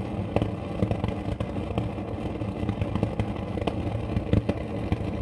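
Gas stove burner running on high under a metal tin of melting candle wax: a steady rumble with irregular ticks and pops.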